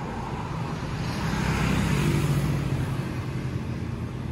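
A car passing on the road, its noise rising to a peak about two seconds in and then fading, over a steady background of traffic.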